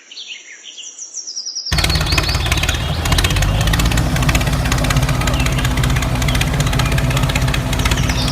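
Birds chirping faintly, then a loud, steady mechanical running noise with a low hum cuts in abruptly about two seconds in, with chirps still heard over it.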